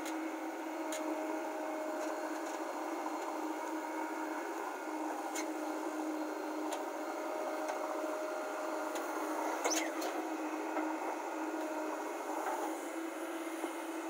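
JCB backhoe loader's diesel engine running with a steady drone as it digs and dumps earth, heard thin with no low rumble. A few short clicks and knocks come through it, about a second in, near the middle and again near the end.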